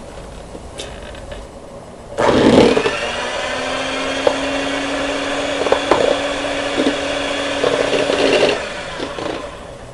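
Electric hand mixer switched on about two seconds in, running steadily as it beats an egg white to stiff peaks, with a few sharp clicks along the way; it stops near the end.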